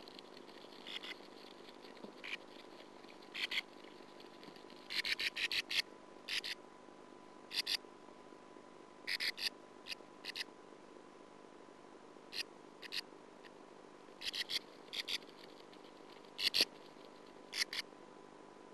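A sand martin's feet scraping and scratching at sand inside its nest burrow, in short scratchy strokes that come in quick bursts of one to five, over a steady hum.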